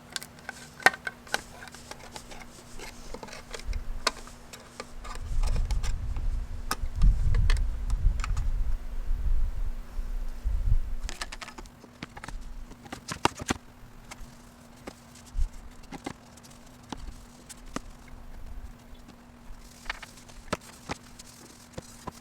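A can of wood stain being mixed and handled: several seconds of low, heavy sloshing and thumping in the middle, with scattered clicks and taps of the can and its lid.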